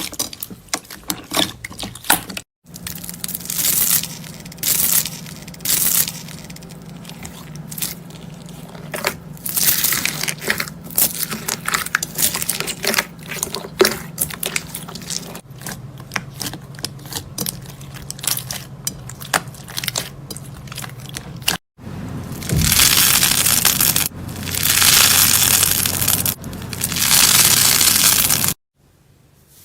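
Slime being squeezed and pressed by hands, giving close-up crackling and crunching sounds, in several short clips that cut off abruptly; the stretch near the end is louder and denser.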